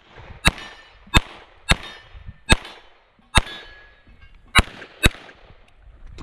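Semi-automatic pistol fired seven times in quick, uneven succession, each shot sharp and loud with a short echo after it.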